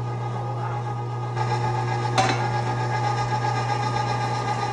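Cabela's Carnivore half-horsepower #8 electric meat grinder running steadily under load, grinding venison through a 10 mm plate. It gets a little louder about a second and a half in, and there is one sharp knock about two seconds in.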